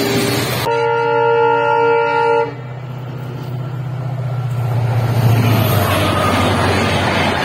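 Diesel locomotive horn sounding one steady chord-like blast of about two seconds. The engine rumble and wheel noise then grow louder as the locomotive approaches and passes close by near the end.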